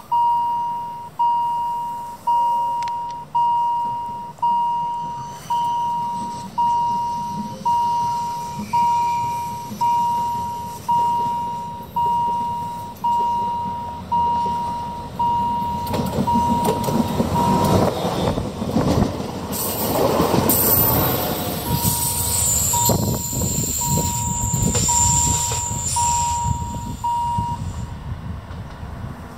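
Level-crossing warning bell dinging about once a second, each stroke one decaying tone, and stopping near the end. From about halfway in, an electric regional train rumbles past over the rails with a high whine for a few seconds, then fades away.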